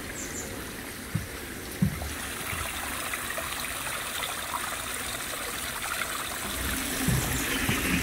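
Small rocky forest stream running and trickling over stones in a steady rush, with a couple of soft low thumps about one and two seconds in.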